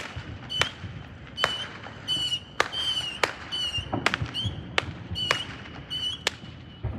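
Fireworks going off: a string of sharp pops and cracks, with short wavering whistles from whistling fireworks in between.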